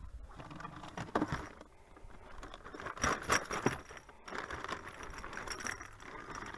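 Fishing tackle being rummaged through in a bag: irregular rustling, crinkling and small hard items rattling and clicking, busiest about a second in and again around three seconds in.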